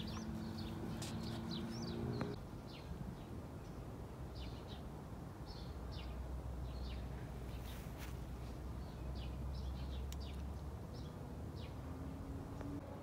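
Small birds chirping in short, scattered calls throughout, over a low steady hum.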